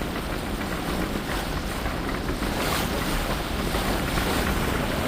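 Wind buffeting the microphone over water rushing along the hull of a Kufner 54 sailing yacht under sail with its engines off: a steady, even rushing noise.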